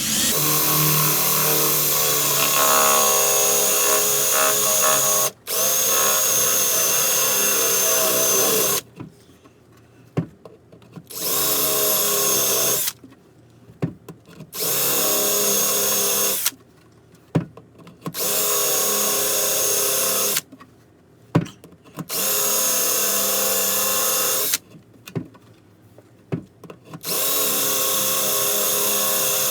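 Power drill boring a 3/4-inch hole through a door with a Forstner bit. It runs first for about nine seconds, then in five shorter bursts of two to three seconds, with brief pauses and a few clicks between them.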